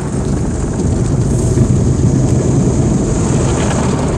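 Tunnel car wash machinery spraying soap foam onto the car, heard from inside the cabin: a loud, steady noise, mostly low.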